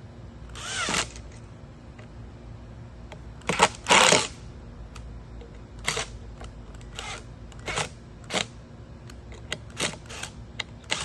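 A series of short clicks and clatters from hand handling of a screw and tools, the loudest two about three and a half and four seconds in, then lighter ticks toward the end. No drill motor runs.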